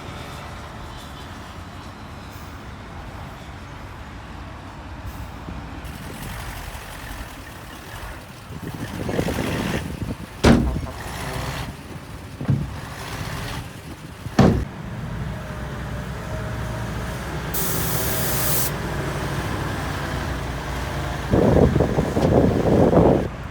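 Heavy diesel earthmoving machinery running steadily, with three sharp metal clanks about two seconds apart midway, a short burst of air hiss later on, and a louder rumbling burst near the end.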